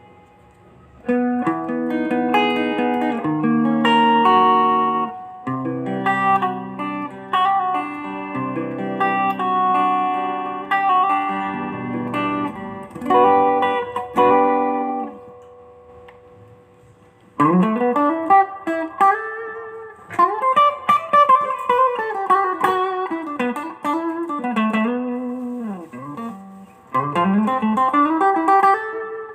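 Mexican-made Fender electric guitar being played: picked chords and ringing notes for the first half, a short pause, then lead phrases full of string bends, with notes sliding up and back down in pitch.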